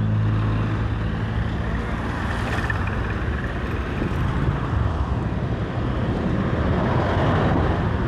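Motorcycle engine running at road speed under steady wind and road rush. The engine hum is clearest in the first second or so, then the rushing noise takes over.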